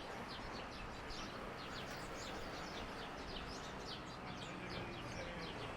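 Many small birds chirping and twittering in quick, repeated short calls over a steady outdoor background hum.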